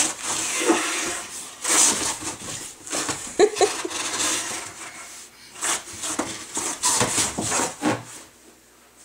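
Cardboard box rustling and scraping in irregular bursts as a toddler crawls through it on carpet, with a brief pitched squeak about three and a half seconds in.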